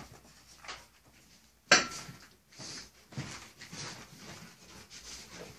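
Irregular rustles and soft knocks of someone walking across a wooden floor while handling the phone, with one sharp knock that rings briefly just under two seconds in.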